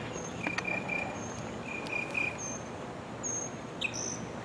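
Insects chirping: thin high notes, then from near the end a steady run of short high chirps about two a second.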